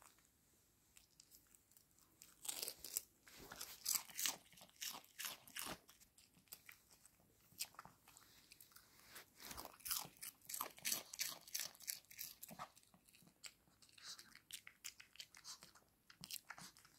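A dog crunching and chewing a dried capelin (smelt) treat, with irregular runs of crisp crunches starting about two seconds in.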